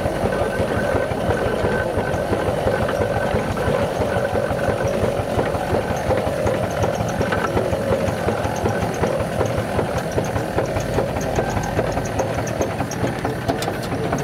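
Miniature reproduction Case steam traction engine running steadily, its rapid exhaust beats and motion making an even, fast rhythm throughout.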